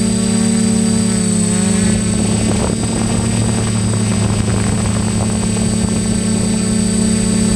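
DJI F450 quadcopter's brushless motors and propellers running with a loud, steady whir, heard close up from a camera mounted on the airframe. Some of its higher tones waver in pitch about a second in, and the sound turns rougher and noisier through the middle.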